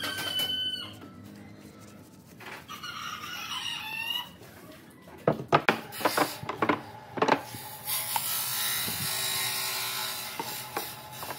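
A bird calling twice: a short held call at the start and a longer wavering call about two and a half seconds in. Then wooden pieces knock several times against the workbench as they are laid down, followed by a steady hiss lasting a couple of seconds.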